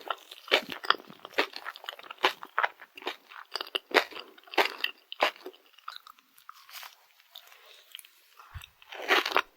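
Close-miked chewing of a Dubai-chocolate rice cake filled with crisp kadaif and pistachio spread: rapid, sharp crunches that thin out about two-thirds of the way through, then pick up again near the end.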